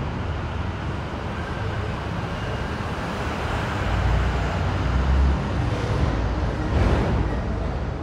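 Continuous low rumble of passing vehicles, swelling about halfway through, with a sharp knock near the end.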